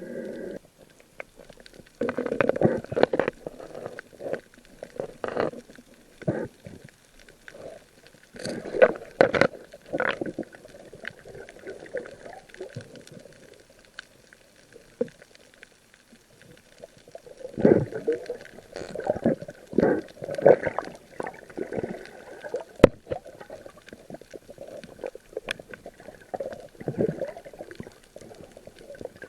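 Water gurgling and sloshing around a night spearfisher in the sea, in irregular bursts with quieter spells between.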